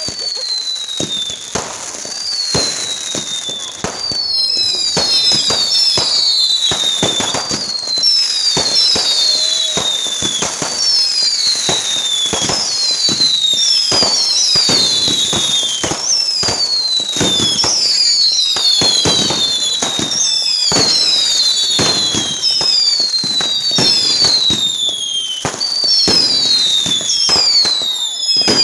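Fireworks going off in a steady barrage: a rapid run of bangs and crackles under many overlapping whistles, each sliding down in pitch. It grows louder about four seconds in.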